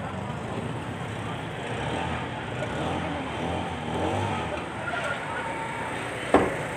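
Street ambience: traffic running past and background voices talking, with one sharp knock about six seconds in, the loudest sound.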